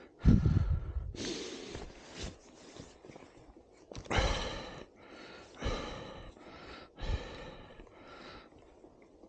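A man breathing hard, with loud breathy exhales about every second and a half and a thump just after the start.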